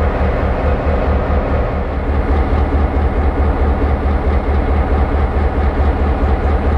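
S-class diesel-electric locomotive's EMD 567 two-stroke V16 diesel engine running loud at close range, a deep evenly pulsing engine beat under a steady mechanical din.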